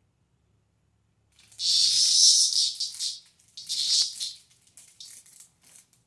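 A cicada buzzing in harsh, high-pitched bursts as it is pawed and disturbed: a long buzz of about two seconds, a shorter one, then two brief weaker ones near the end.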